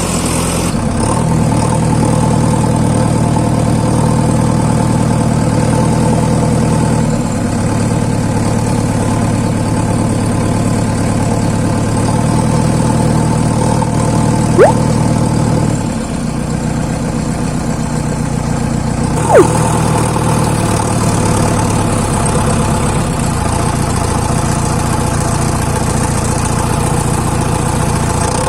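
Diesel engine of working earthmoving machinery running steadily, its engine speed shifting up and down in steps a few times. Two brief, sharp rising chirps about five seconds apart stand out as the loudest sounds.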